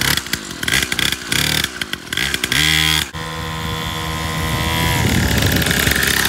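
Small 49cc two-stroke pocket dirt bike engine, revved in short blips for the first few seconds, then running steadily and rising gradually in pitch as the bike pulls away.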